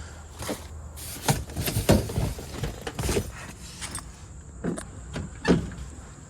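A series of irregular knocks and thuds, about seven over six seconds, over a steady low hum.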